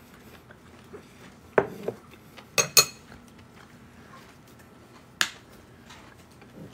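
A spoon and ceramic dishes clinking and knocking as they are handled: two light clinks about a second and a half in, a sharper pair near three seconds, and one more click about five seconds in.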